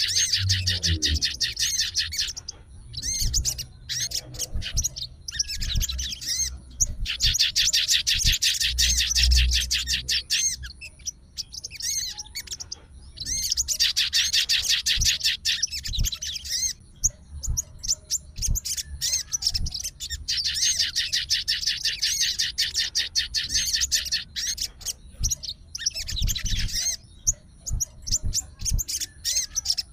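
Sogon birds singing long bursts of fast, closely repeated high chirping notes, several seconds at a time with short pauses between. This is the agitated 'fighter' song given in answer to another sogon's call.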